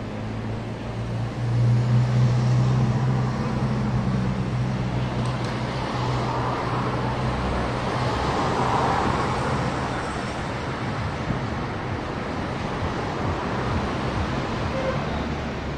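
City street traffic. A vehicle's engine runs close by with a steady low hum that is loudest about two seconds in and fades away after about ten seconds, over the continuous rush of passing traffic.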